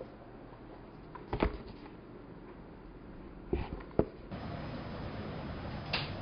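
A few short knocks and handling noises from a file and papers being passed and set down on a desk, over quiet room tone. The loudest knock comes about four seconds in, and the background hiss steps up a little just after it.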